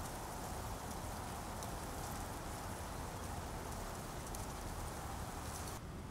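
Wind moving through dry silver grass and goldenrod: a steady rustling hiss with faint crackles and a low wind rumble on the microphone. Near the end it cuts to a duller, quieter outdoor ambience.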